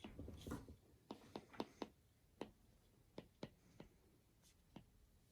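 Faint, irregular light taps and clicks, several close together in the first two seconds and then a few scattered ones.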